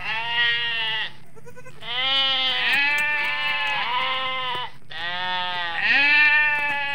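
Goat kids bleating: three long, wavering calls, the first ending about a second in and the next two lasting about three seconds each.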